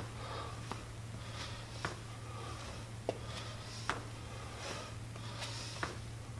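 A man breathing hard in short, forceful breaths through the nose as he works through reverse lunges with dumbbell curls, with sharp taps about once a second over a steady low hum.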